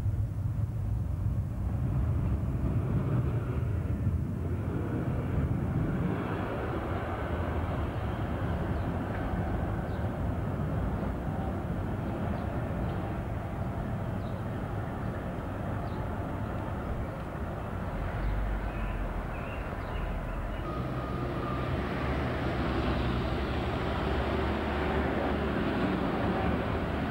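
Street tram running along its track, heard as a steady rumble with traffic noise. From about three-quarters of the way through, the noise grows louder and brighter as a tram passes close by.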